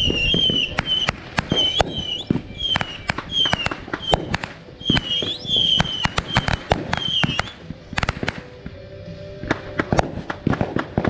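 Consumer fireworks going off in quick succession: a dense string of sharp bangs and crackles, with short, high, slightly falling whistles repeating about twice a second for the first seven seconds. After that come scattered bangs.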